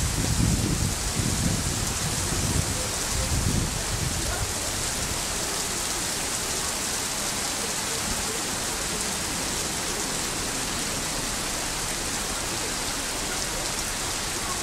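Heavy summer downpour: a dense, steady hiss of rain. A low rumble, from thunder or gusts, dies away about four seconds in.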